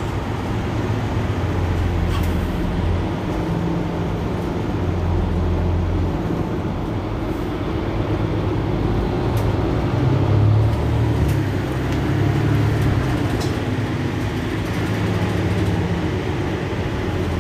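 Mercedes-Benz Citaro C2 city bus idling at a stop: a steady low diesel engine hum whose low tones shift slightly, with a brief swell about ten seconds in, over street noise.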